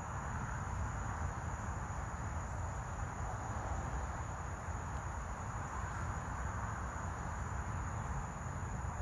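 Steady insect chorus in summer woods, an even drone with a thin high-pitched trill above it, over a constant low rumble on the microphone.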